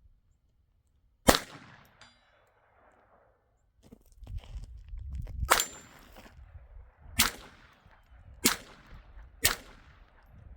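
Five gunshots, each with a short fading report: one about a second in, the loudest, then four more spaced about one to one and a half seconds apart near the end.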